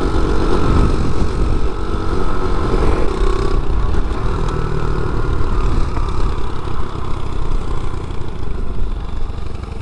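A small 50cc pit bike engine running steadily while the bike is ridden, its pitch easing down a little over the last few seconds.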